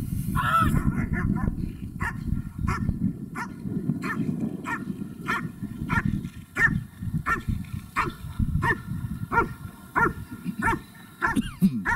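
German Shepherd Dog barking at a protection helper in a steady run of short, evenly spaced barks, about three every two seconds: the guarding bark a protection dog gives to hold the helper in place.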